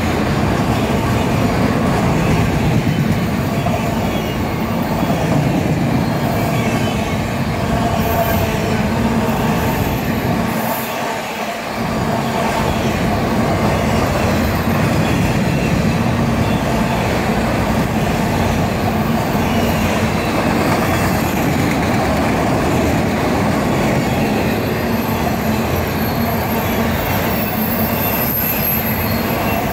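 Freight train of autorack cars rolling past at close range: a loud, steady rumble and rattle of steel wheels on the rails. The low rumble dips briefly about eleven seconds in.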